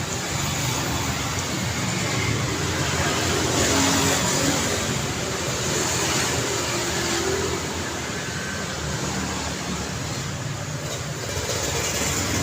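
Busy street traffic: a steady, continuous noise of passing motor vehicles, swelling as vehicles pass closer a few seconds in and again near the end.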